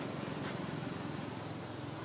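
Steady low rumble of a motor vehicle engine running nearby, easing off slightly.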